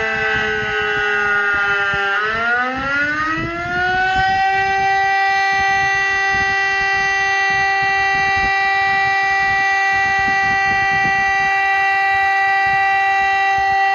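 DS977 siren sounding the Czech "fire alarm" signal: its pitch sags for about two seconds, climbs back over the next two, then holds as a steady wail.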